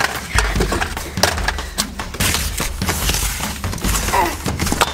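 Irregular thumps, knocks and scraping on cardboard as a child crawls through a cardboard box tunnel.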